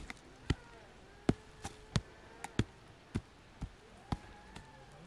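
A stone knocking on dry soil clods as they are broken up on an earth-oven mound: sharp, uneven knocks about every half second.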